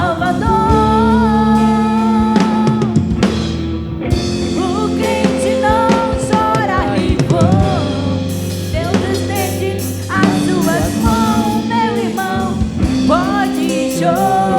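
Live gospel band music: a drum kit and sustained bass and keyboard notes under a wavering sung melody line, with no clear words.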